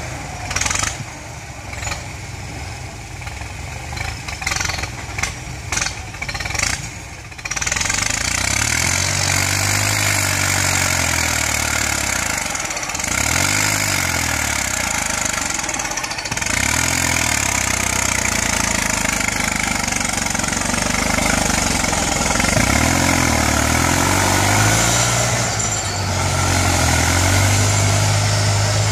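Kubota farm tractor's diesel engine working as its front dozer blade pushes soil, the engine note rising and falling again and again as it revs under load. The first quarter is quieter, with a few sharp knocks, before the engine grows louder.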